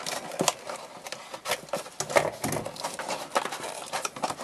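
Handling noise of a red plastic tray being worked out of a cardboard box: irregular scraping, rustling and small clicks of plastic against cardboard.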